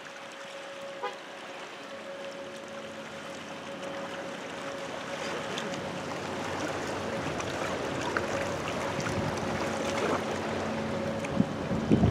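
Waterfront ambience: a steady wash of water and light wind noise, with a faint, steady hum underneath, growing gradually louder.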